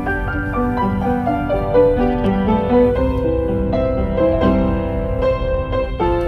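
Background music: a piano or keyboard melody over sustained chords and a low bass.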